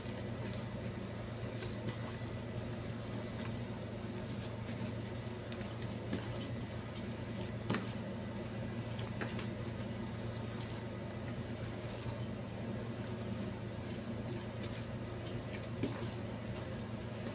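Hand kneading soft flour dough in a plastic basin: soft squishing and patting with scattered light taps, over a steady low hum.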